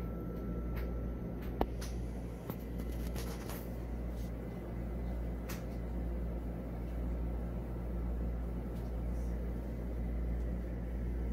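Small electric motor of a Lemax Spooky Town animated village piece running with a steady low hum, with a sharp click about a second and a half in.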